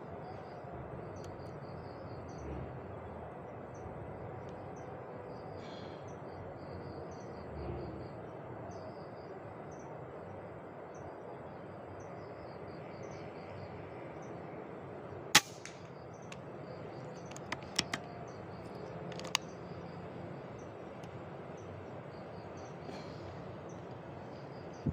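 Air rifle shot: one sharp crack about two-thirds of the way in, followed a couple of seconds later by a few lighter clicks. Underneath is a steady outdoor hiss with faint high chirps repeating.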